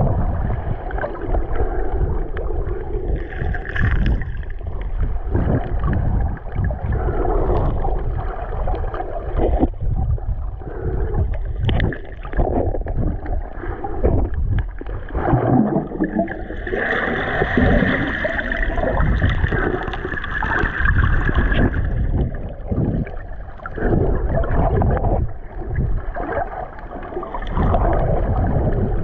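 Water sloshing and gurgling against an underwater camera in shallow surf, heard from below the surface as an uneven, muffled rumble of moving water. A brighter hissing rush of water stands out for several seconds past the middle.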